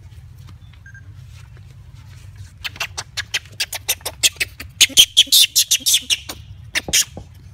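Young long-tailed macaque giving a rapid series of short, harsh high squeals, about four to five a second, starting about two and a half seconds in and loudest near the middle of the run.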